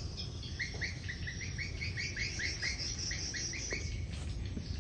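A bird calling a quick run of short, downslurred notes, about four a second, for some three seconds, then stopping.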